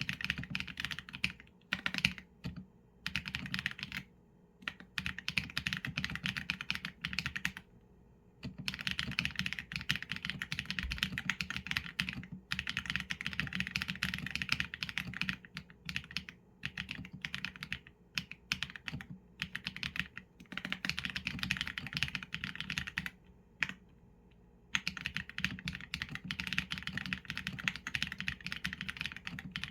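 Mechanical keyboard typing on a Qsenn A75 with Leobog Graywood v4 linear switches and PBT keycaps: fast runs of keystrokes broken by a few short pauses.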